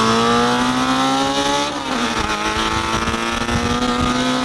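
Ford Focus ST's turbocharged four-cylinder, with a 3-inch aFe Takeda exhaust and hatless downpipe, accelerating at full throttle. Its pitch climbs steadily, dips briefly about two seconds in as it shifts up, then climbs again.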